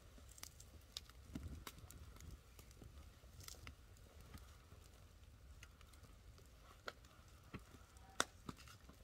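Near silence, with a few faint, sharp clicks scattered through it and a low background rumble.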